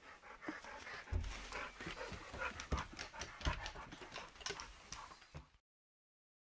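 Husky's paws and claws clicking on wooden deck boards, with panting, as the dog walks in through a doorway. The sounds are a quick, irregular run of sharp clicks and knocks, and they cut off suddenly near the end.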